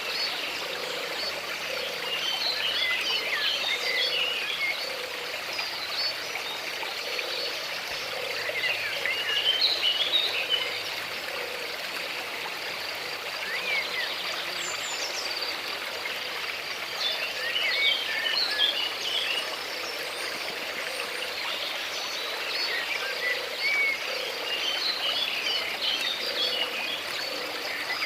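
Water of a stream running steadily, with outbursts of bird song and chirps every several seconds.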